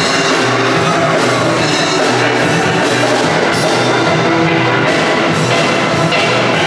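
A steel band playing a tune live on steel pans, with drums keeping the beat.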